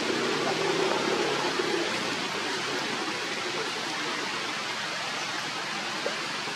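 Steady outdoor hiss with no clear events, with a faint low murmur in the first couple of seconds.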